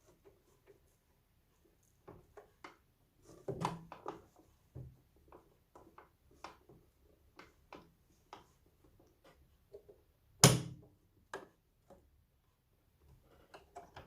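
Scattered light clicks and taps from handling things at a work table, with one loud knock about ten and a half seconds in.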